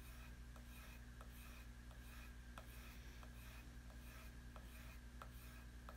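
A knife blade being sharpened, heard as faint, regular light strokes about one every two-thirds of a second over a low steady hum.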